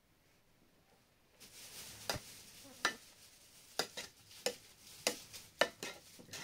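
Metal spoon stirring food in a metal pot. A soft scraping hiss begins about a second and a half in, with about seven sharp clinks of the spoon against the pot, roughly one every half second to second.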